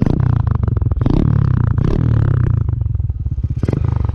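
Earl 150 motorcycle engine running at the exhaust, blipped up in short revs about three times, then dropping back towards idle near the end.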